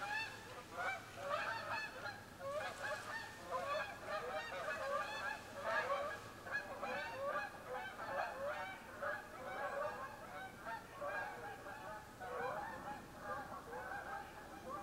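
A flock of geese honking, many calls overlapping almost without a break, thinning briefly about two-thirds of the way through.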